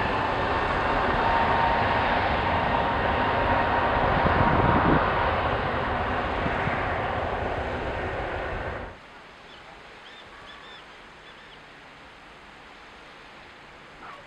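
easyJet Airbus A321neo's CFM LEAP-1A turbofans at takeoff power during the takeoff roll: a loud steady roar with a high, steady fan tone. About nine seconds in it cuts off suddenly to a much quieter hush, with a few faint chirps.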